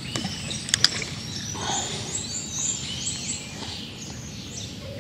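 Songbirds chirping and calling over a steady outdoor background, with two sharp clicks from a spinning reel a little under a second in as a feeder cast is made.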